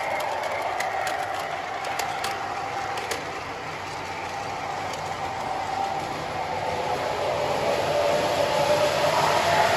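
MTH O-scale model subway train running on its track: a steady electric whine over wheel noise, with a few rail-joint clicks in the first few seconds. It fades a little as the train moves off, then swells again near the end.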